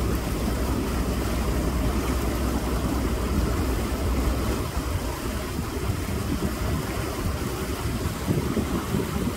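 River boat under way: a steady low engine rumble with water and wind noise. The deep part of the rumble eases off about halfway through.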